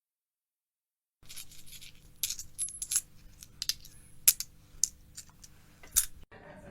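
Coins dropping and clinking together: an irregular run of sharp metallic clinks that starts about a second in and stops near the end.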